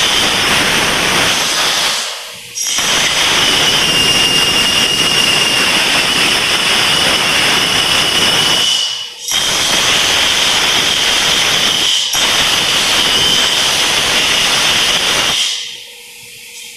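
Compressed air from an air hose blasting in three long hissing bursts, with a thin whistle on top, blowing stray powder-coat overspray off a frame.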